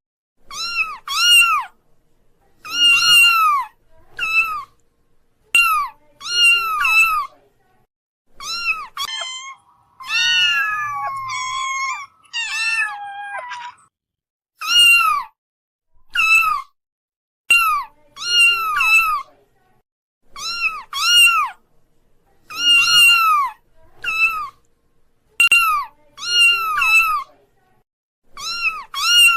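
Kitten meowing over and over: short, high-pitched mews that fall in pitch, often in quick pairs, with one longer wavering cry about ten seconds in.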